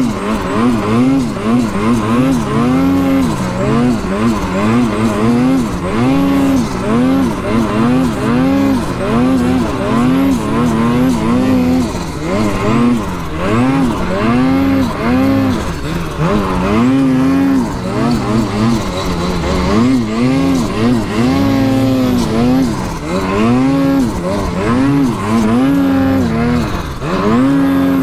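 Mountain snowmobile's two-stroke engine revving hard under load in deep snow, its pitch rising and falling about once a second as the throttle is worked.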